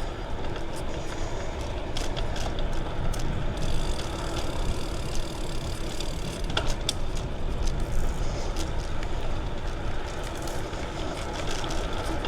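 Riding noise from a bicycle on a paved path: steady low wind rumble on the windscreened microphone, with tyre noise and scattered light clicks and rattles from the bike.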